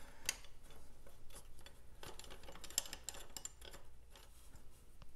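Scattered small metallic clicks and clinks of a combination spanner working a nut on a motorcycle's front prop-stand mounting bracket.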